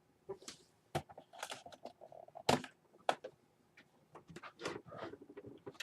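Scattered light clicks and knocks, about a dozen at uneven intervals, from hands handling computer hardware and cables.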